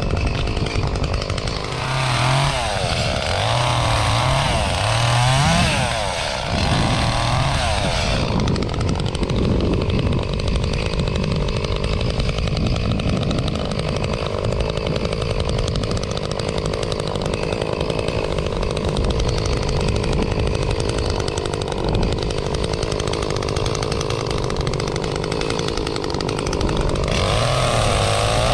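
Echo CS-352 two-stroke chainsaw, revving up and down for the first several seconds, then held at a steady high speed for about twenty seconds before revving again near the end.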